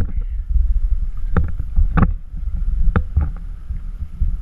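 Water sloshing and splashing as a long-handled dip net is swept through shallow water, with several short splashes over a steady low rumble on the microphone.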